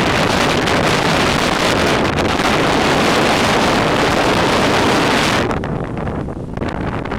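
Loud wind buffeting the microphone, a steady rushing noise that eases off and turns duller about five and a half seconds in.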